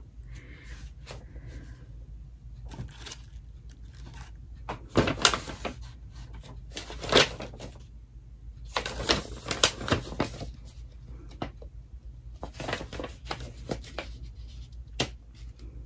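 Paper and plastic packets of craft supplies being handled: scattered rustling and clicking, loudest about five, seven and nine to ten seconds in.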